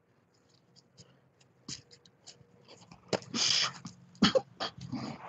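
Phone microphone handling noise as the phone is turned in the hand: scattered clicks, a short rushing hiss about three seconds in, then a few sharp knocks.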